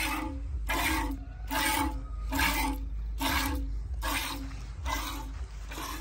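Goat being hand-milked: jets of milk squirting into a steel pot partly full of milk, one hissing spurt a little more than once a second in a steady rhythm.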